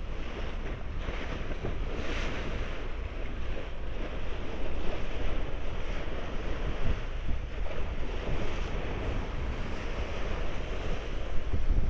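Bow wave of a moving ship: seawater rushing and splashing as the hull cuts through it, a steady rush that grows a little louder about four seconds in, with wind buffeting the microphone as a low rumble underneath.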